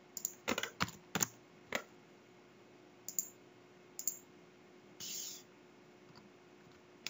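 Typing on a computer keyboard: a quick run of about six keystrokes in the first two seconds, then a few scattered keystrokes. A short soft hiss comes about five seconds in.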